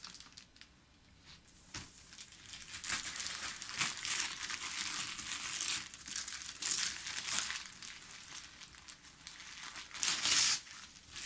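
Christmas wrapping paper being torn and crumpled off a boxed present, in repeated rips and rustles starting about two seconds in, the loudest rip near the end.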